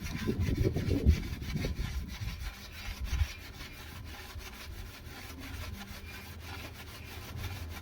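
Rubbing and scraping from hands-on work, with a few knocks over the first three seconds, then quieter.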